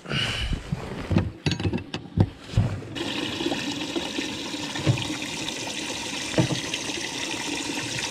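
A boat's carpeted livewell hatch lid clunks and knocks as it is opened. About three seconds in, a steady rush of water in the livewell begins.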